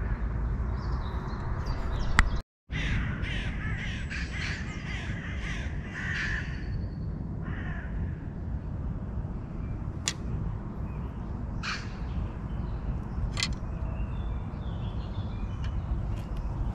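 Crows cawing: a quick run of harsh calls from about three to seven seconds in, then a few single short sharp sounds further apart, over a steady low rumble.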